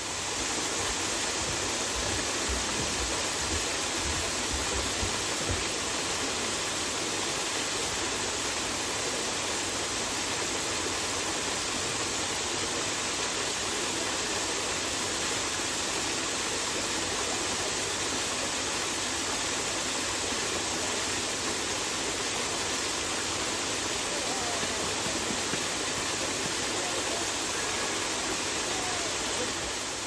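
Waterfall pouring down a rock face: a steady, unbroken rush of falling water.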